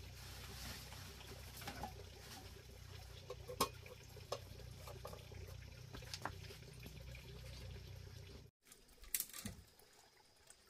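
Faint clinks and knocks of metal pots and firewood at a wood-fired clay stove, over a steady low background noise. About eight and a half seconds in it cuts to a quieter spell with a few soft rustles.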